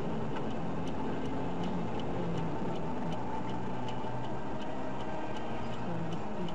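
Steady running noise of a car heard from inside, with a light ticking repeating every half second or so.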